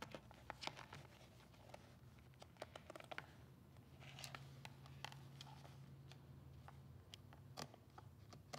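Faint scattered clicks and short scrapes of a craft knife blade cutting through the stitched seam of a leather bag.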